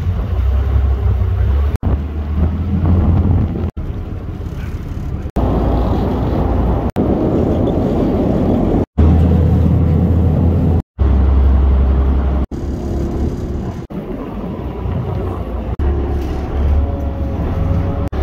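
Low rumble of a mooring boat's engine with water and wind noise on the microphone, in short stretches broken by abrupt cuts every second or two.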